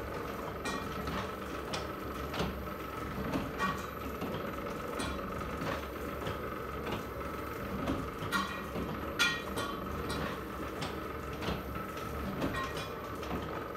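Chandler & Price 12x18 platen letterpress running: a steady mechanical hum with scattered clicks and clacks.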